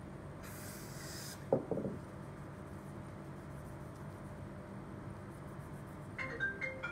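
Handling noise from a replacement Apple Watch touch screen being worked on: a brief hiss, then a light knock of a few quick clicks. Near the end a short electronic tune of a few clear high notes begins.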